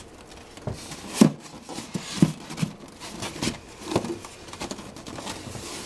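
Incubator lid being lowered onto the base and fitted into place: a series of light plastic knocks and scrapes as it is pressed and adjusted.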